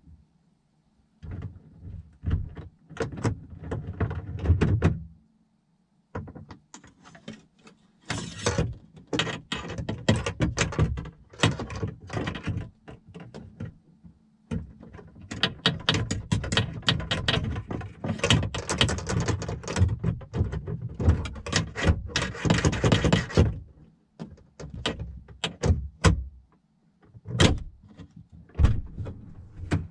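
A steel slim jim lockout tool scraping and clunking inside the door of a 2010 Chevy Silverado as it is worked down past the window glass to catch the lock rod. It comes as long runs of rapid knocks and rattles, broken by a few short pauses.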